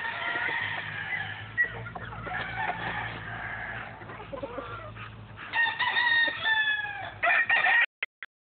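Gamecock roosters crowing and clucking, with a long crow about five and a half seconds in and a shorter one right after it, over a steady low hum. The sound cuts off near the end.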